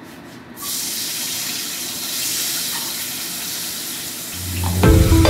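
Chopped capsicum and green chillies hitting hot oil in a kadai: a sudden sizzle about half a second in that carries on steadily. Background music comes in near the end, louder than the frying.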